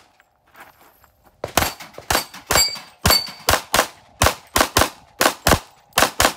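Semi-automatic pistol firing rapidly: about fifteen shots in quick pairs and short strings, starting about a second and a half in.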